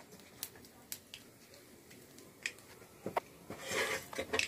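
Hot oil with nigella seeds sizzling in a pan, heard as a short hiss about three and a half seconds in, after a few light clicks of the pan and bowls being handled.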